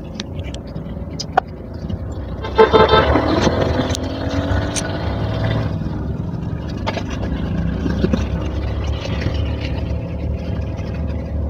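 A motor vehicle's engine runs steadily, heard from inside its small metal passenger cab while riding. About two and a half seconds in, a long horn sounds for about three seconds, its pitch sagging slightly.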